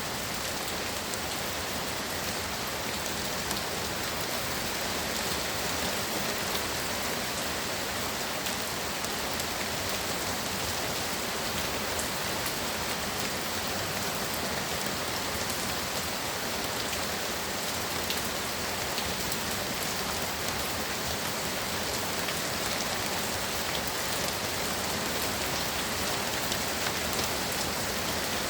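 Heavy rain pouring steadily: a dense, even hiss of rain with fine drop ticks, unchanging throughout.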